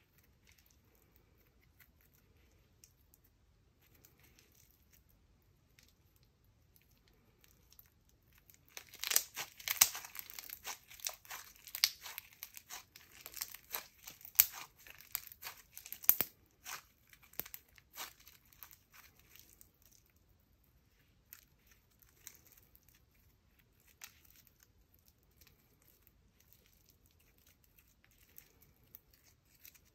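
Floam slime, full of tiny foam beads, squeezed and stretched between the hands, giving dense crackling and popping from about nine to sixteen seconds in. After that come scattered pops that die away by about twenty seconds, and the rest is faint.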